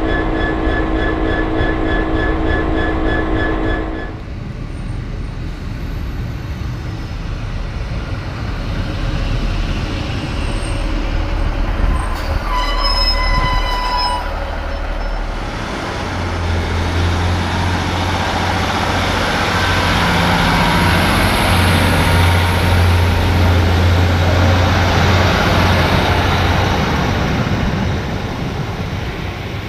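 A Class 66 diesel freight locomotive's engine runs with a steady many-toned hum, cut off after a few seconds. Then a Class 156 diesel multiple unit rolls along a platform, with a brief high wheel squeal about halfway. Its steady low diesel engine drone then grows loud and eases as the unit pulls away near the end.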